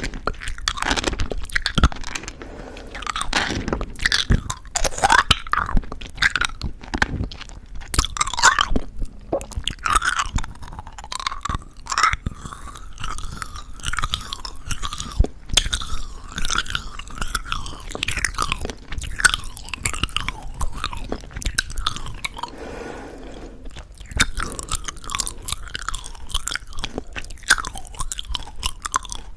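Close-miked mouth chewing chewy jelly candy with a crunchy sugar coating: crunching and wet, sticky chewing, with many small irregular mouth clicks and a softer moment near the end.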